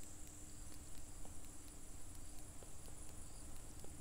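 Faint scattered clicks of a stylus tapping and writing on a tablet's glass screen, over a steady high-pitched whine and a low hum of room background.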